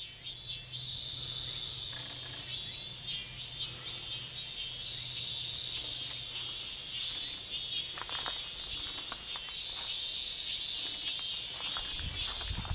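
Outdoor insect chorus: a dense high-pitched buzz that swells and fades in waves, overlaid with short, very high chirps repeating a few times a second.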